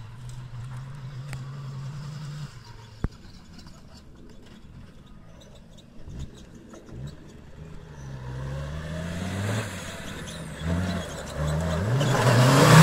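2.5 L five-cylinder VW TDI diesel engine in an off-road buggy, revving up and down over and over as the buggy is driven hard. Faint and steady at first, it grows steadily louder and is loudest near the end as the buggy comes close.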